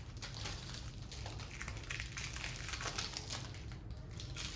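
Light rustling and soft irregular clicks of hands handling freshly unwrapped game cards and their plastic wrapping.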